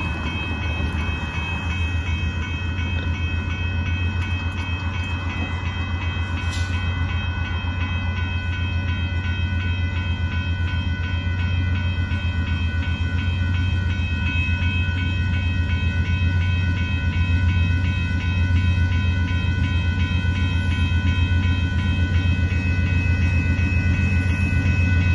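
Railroad crossing warning bell ringing steadily as the crossing lights flash and the gates lower, over a steady low rumble.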